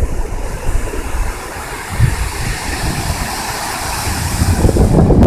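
Waves washing onto a beach: a steady rush of surf that swells and brightens in the middle, over a deep rumble of wind on the phone's microphone.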